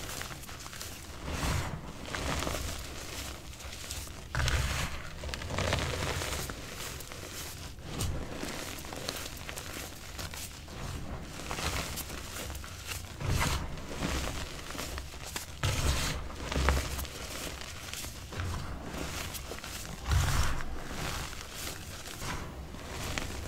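Reformed gym chalk being squeezed and crushed in bare hands, crumbling into powder: soft, irregular crunching in uneven bursts, with a few louder squeezes.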